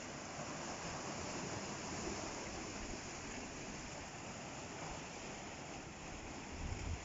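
Sea surf washing steadily. A few low rumbles come in near the end.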